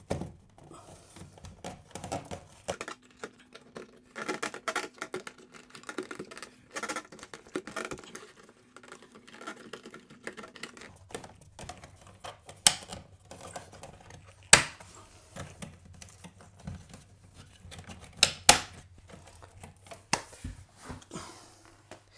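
Plastic network back box and cables being handled: a busy run of small clicks, taps and rattles, with a few sharp snaps in the second half.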